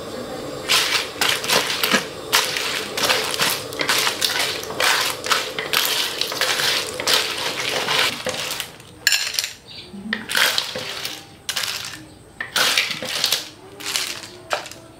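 Hard cockle shells clattering and scraping against a metal wok as a spatula stirs them through thick sauce. The clatter is dense at first, then from about halfway it breaks into separate scoops and scrapes.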